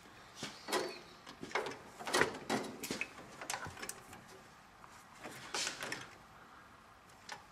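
Scattered short clicks, rustles and light knocks of wiring and its plastic loom being handled and pushed into place, thickest in the first few seconds, with one more rustle a little after five seconds.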